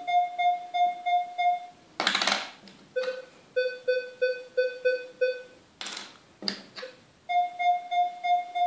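Minelab Equinox 800 metal detector sounding repeated target beeps as a coin is passed over its coil, about three beeps a second. The run of beeps in the middle is lower in pitch than the higher runs at the start and near the end, and the pitch follows the target ID the detector reads. Two brief rustling noises fall between the runs.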